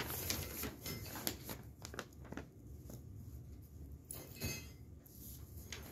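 A sheet of paper rustling and crackling as it is unfolded and handled: a run of small crackles in the first two seconds or so, then a brief rustle about four seconds in.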